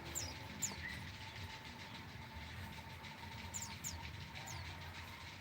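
Small cage birds giving short, high, falling chirps: a couple near the start and a few more about three and a half seconds in, over a low steady rumble.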